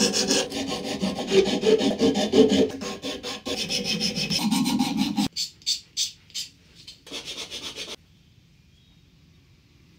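Hand sanding a plywood saw handle: quick back-and-forth strokes of abrasive rubbing on wood for about five seconds, then slower, separate strokes that stop about eight seconds in.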